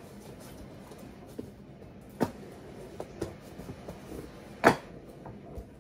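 Two sharp knocks about two and a half seconds apart, the second the louder, with a few light clicks between them: objects being handled and set down on a hard surface while preparing to open a cardboard box.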